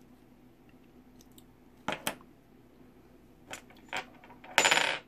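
Small metal axle-joint parts clinking as they are handled and fitted together: two sharp clicks about two seconds in, two softer knocks a little later, then a brief metallic rattle near the end.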